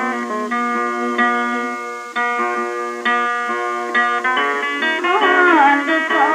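Music led by a plucked-string melody, a run of separate notes, with a few sliding, bending notes near the end.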